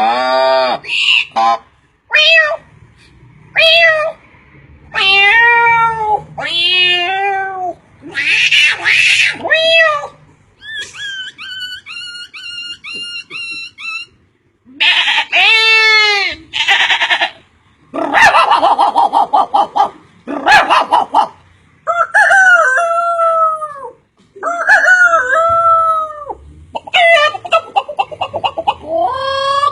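A run of different animals' calls played one after another, each kind lasting a few seconds: pitched cries that glide up and down, a stretch of quick evenly repeated chirps, and rapid pulsed calls.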